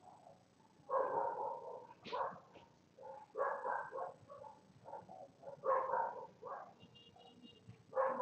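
A dog barking several times, one short bark or bark burst every second or two.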